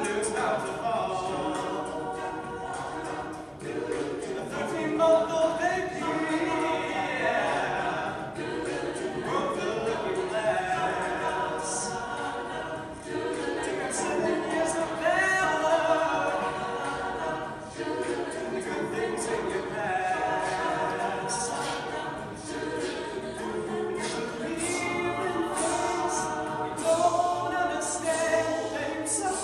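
An a cappella group of men and women singing a song in harmony, voices only and no instruments.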